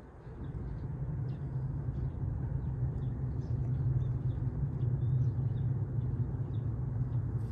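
Low, steady engine rumble from a passing vehicle, swelling in about half a second in and holding, with faint bird chirps above it.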